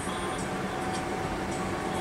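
Car cabin noise while driving: a steady rumble of engine and tyres on the road, with a faint steady tone over it.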